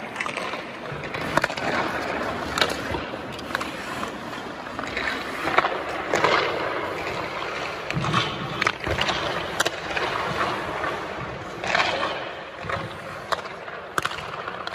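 Hockey skates scraping and carving on rink ice, with repeated sharp clacks of pucks striking sticks, goalie pads and the boards.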